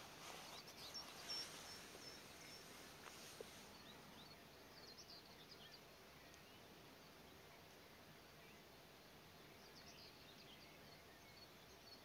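Faint distant songbirds: scattered short, high chirps in small clusters over a quiet outdoor hiss, with one faint click about three seconds in.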